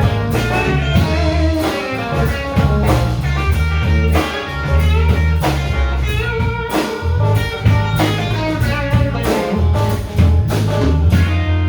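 Live blues band playing an instrumental passage: electric guitar lines over a walking bass and a steady drum beat, with no vocals.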